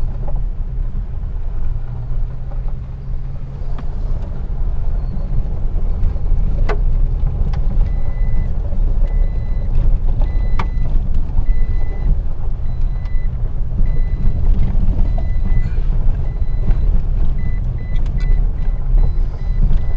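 Toyota Tacoma pickup driving on a dirt road, heard from inside the cab: a steady low rumble of engine and tyres, with a few sharp knocks from bumps. From about eight seconds in, a high electronic warning beep repeats over and over.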